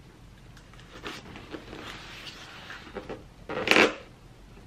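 A plastic knife scratching and sawing at packing tape on a cardboard presentation box, with small scrapes and clicks and one louder rasp a little over three and a half seconds in.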